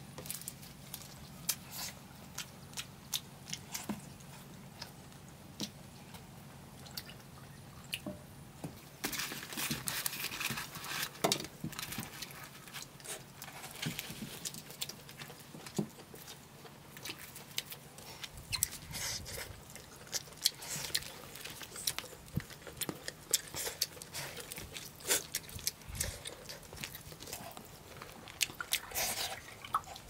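People eating with their hands: close, wet chewing and lip-smacking with many small clicks and crunches, busier from about nine seconds in.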